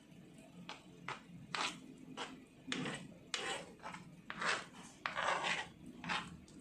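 Irregular scraping and rubbing strokes of a kitchen utensil against a bowl or board, some short and a couple longer, about half a second, near the end.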